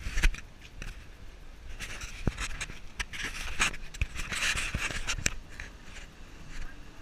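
Close scraping and rubbing of a handheld action camera in its housing being moved about, with several sharp knocks, the sharpest just after the start.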